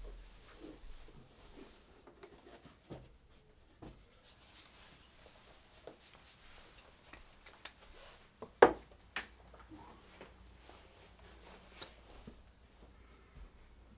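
Quiet rustling and scattered light knocks of shoes being put on and people moving about in a small hallway, with one sharp knock a little past halfway through.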